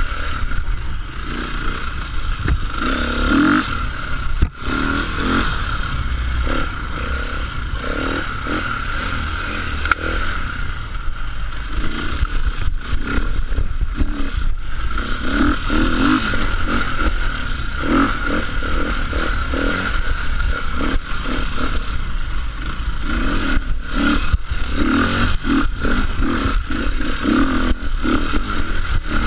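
Enduro motorcycle being ridden off-road, its engine revving up and down unevenly, with rattling and scraping throughout.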